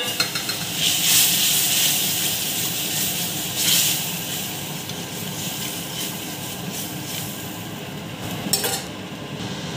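Moong dal sizzling in a steel kadai as it meets the hot fried masala, while a metal spatula stirs and scrapes through it; the sizzle slowly dies down.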